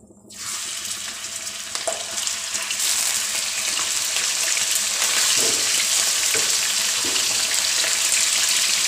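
Freshly washed raw chicken pieces sizzling in hot oil in a karahi, the sizzle starting suddenly as the chicken goes in and building over the first few seconds. A wooden spatula stirs the pieces near the end.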